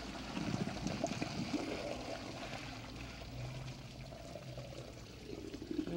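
Boiling water pouring out of a pot through a colander held over its mouth and splashing into a kitchen sink, draining the cooking water off blanched string beans. The flow is strongest in the first second or two, then tapers off.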